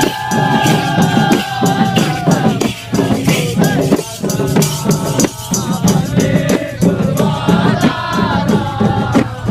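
Gurung song: a sung melody with long held notes over a steady percussion beat.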